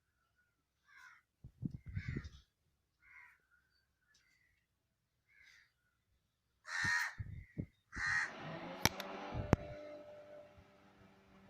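Short harsh animal calls repeated about once a second, with a few dull thumps about two seconds in. From about seven seconds in come louder knocks, two sharp clicks and a rustle, fading out over the last seconds.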